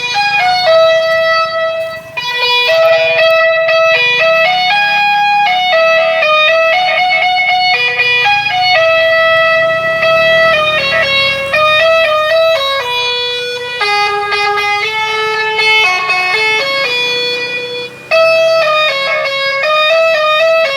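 Electronic telolet horn playing its fifth preset tune, a quick melody of stepped notes. It stops briefly about two seconds in and again near the end.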